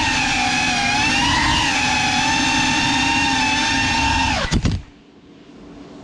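GEPRC CineLog35 FPV drone's brushless motors and propellers whining, the pitch wavering with the throttle. About four and a half seconds in the whine falls away quickly with a few clicks and stops as the drone comes to rest on the floor.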